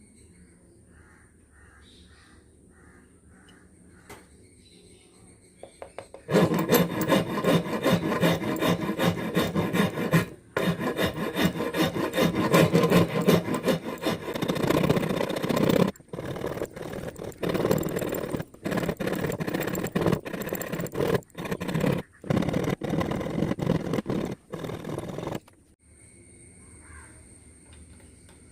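A hand tool rasping across wood in rapid strokes. The sound starts about six seconds in, runs in stretches of a few seconds broken by short pauses, and stops a few seconds before the end.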